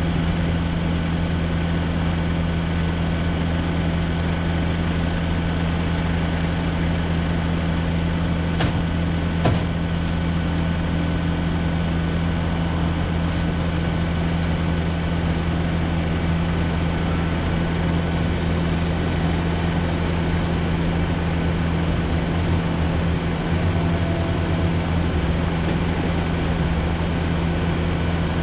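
Nissan NT400 truck's diesel engine running steadily, driving the hydraulics of its Socage boom lift as the boom is worked from the rear controls: a steady low drone. Two short clicks come a little under ten seconds in.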